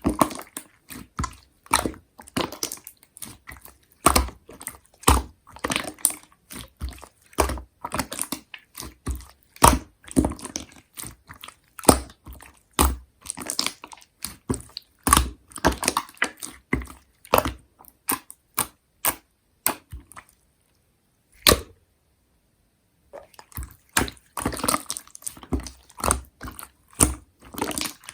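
Slime being squished and pressed by hand, giving an irregular run of wet clicks and pops, with a pause of a few seconds about two-thirds of the way through.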